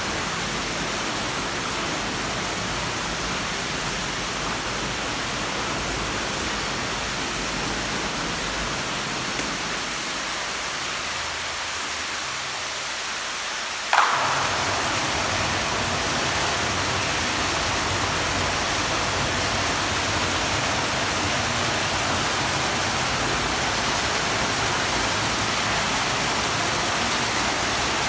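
Pool water attraction running: a steady rush of falling, splashing water. About halfway through there is a brief click, and the splashing turns louder and brighter.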